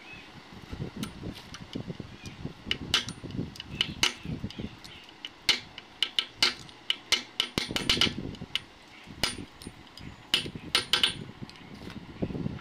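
Irregular sharp metallic taps and clinks of hand tools striking and handling metal parts during a small diesel engine repair, some in quick clusters.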